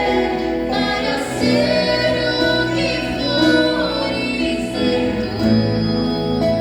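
A girl's voice singing a song over instrumental accompaniment, with long held notes.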